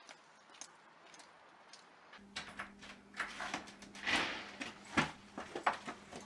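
Faint footsteps, about two a second, then a door being opened from outside: the knob and latch click, with knocks and a brief rattle as the door is pushed open.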